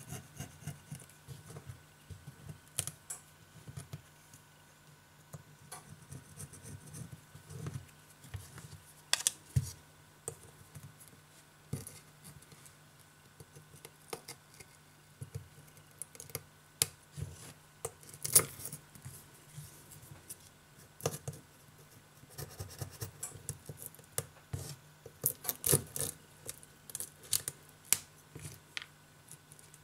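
Flat metal scraper blade scratching old silicone-like display adhesive off a Huawei Mate 8's metal frame in short, irregular strokes and clicks; the residue is coming off stubbornly. A faint steady low hum runs underneath.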